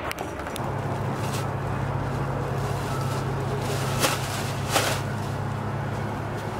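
Steady low hum of an engine running, with two short sharp clicks about four and five seconds in.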